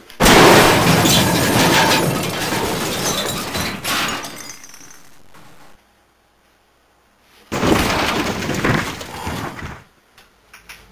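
Two loud crashes with a shattering, breaking quality. The first hits suddenly and trails off over several seconds; the second starts suddenly after a dead-silent gap a little past the middle and fades by near the end.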